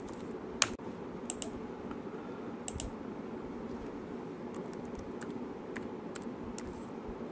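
Keystrokes on a laptop keyboard: scattered single key presses and short runs of typing, over a steady low hum.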